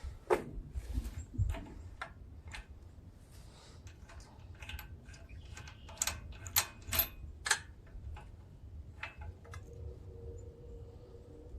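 Irregular metallic clicks, knocks and clinks of hand tools as a 13/16 spark plug socket is worked to take the spark plug out of the chipper shredder's small engine, with a few sharper ringing clinks in the middle.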